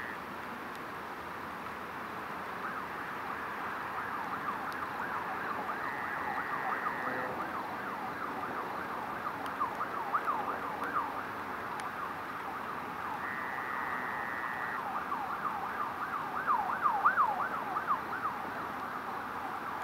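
Several emergency vehicle sirens sounding at once, their pitch sweeping rapidly up and down over and over, growing louder in the last few seconds.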